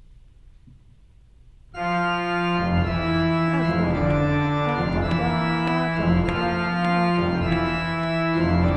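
Organ playing: after a short pause, held chords start abruptly about two seconds in, and a sustained low pedal line comes in under them a moment later, with the notes changing in steps as the passage goes on.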